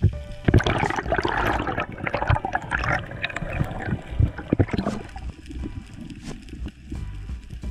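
Water gurgling and bubbling against an underwater camera as a diver swims. A dense, splashy rush full of small pops runs from about half a second in until about five seconds, then dies down to a low rumble.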